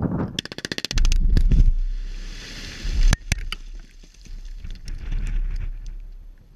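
Rock blasting with explosives for a wind turbine foundation: a rapid string of sharp cracks, then a heavy boom about a second in, followed by blasted rock and gravel raining down in scattered patters, with another sharp crack about three seconds in. Wind rumbles on the microphone throughout.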